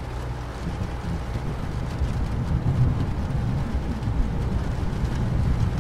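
Rainstorm ambience: a steady hiss of rain over a deep, continuous rumble that swells slightly in the middle.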